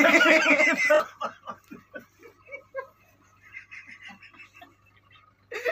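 Several young men laughing, loud at first and then dying away over a few seconds into soft, broken chuckles.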